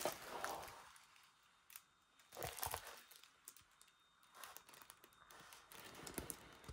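Faint crinkling and rustling of plastic being handled, in a few short spells: one at the start lasting about a second, another about two and a half seconds in, and softer rustling near the end.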